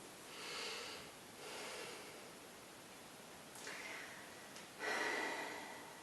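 A person breathing audibly: four soft breaths in and out, the last near the end the loudest.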